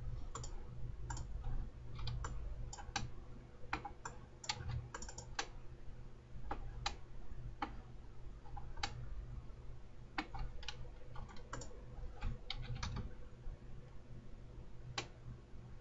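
Computer mouse clicks and keyboard keystrokes at an irregular pace, sometimes several a second, over a low steady hum.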